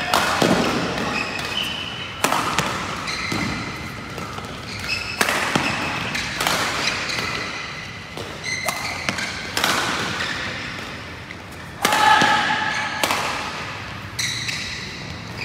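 Badminton doubles rally: sharp racket strikes on the shuttlecock roughly once a second, with short shoe squeaks on the court floor between them, echoing in a large hall.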